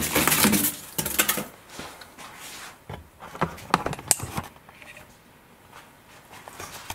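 Polystyrene foam packing blocks scraping and crunching as they are pulled out of a wooden crate, loudest in the first second and a half. Scattered light knocks and clicks follow.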